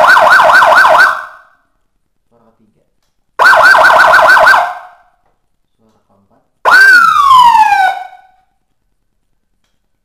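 Electronic 12-tone siren module played loud through a 10-watt horn loudspeaker: two short bursts of fast warble, about six sweeps a second, each lasting about a second. Then, about seven seconds in, a single falling sweep.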